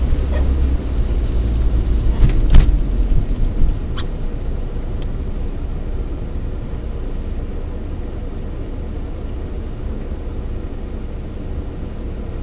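Car cabin noise picked up by a dashcam microphone: road and engine rumble that fades over the first few seconds as the car slows to a stop, then a steady low hum while it waits at the light. A few sharp clicks sound about two and a half seconds in and again near four seconds.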